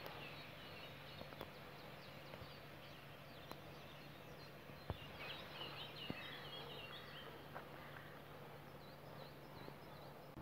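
Faint birdsong: short high chirps and twittering, busiest in the middle and again near the end, over a quiet steady low hum, with a few faint clicks.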